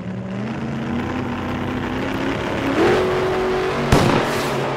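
Cinematic sound-design effects: a drone that climbs slowly in pitch, jumps to a higher held tone about three seconds in, then a sharp impact hit about a second later.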